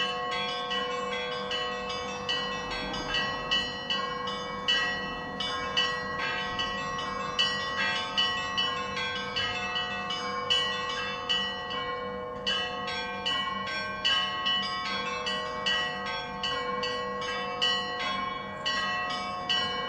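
Church bells ringing a continuous peal: rapid, irregular strikes of smaller higher bells over the steady, sustained hum of larger bells.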